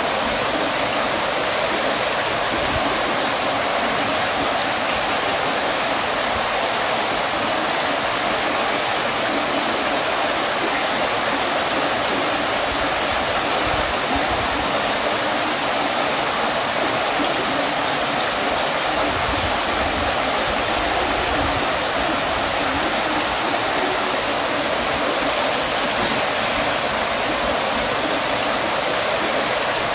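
Water fountain running steadily: falling water splashing and spraying in an even, unbroken hiss. One short high-pitched sound stands out about 25 seconds in.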